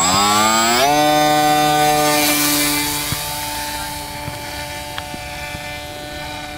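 Homemade foamboard RC plane's electric motor and propeller throttling up with a rising whine during the hand launch, then holding a steady high-pitched drone that grows fainter from about three seconds in as the plane flies away.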